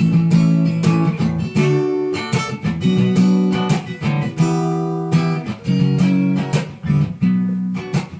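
Acoustic guitar strumming chords in an instrumental interlude of a song, with no singing.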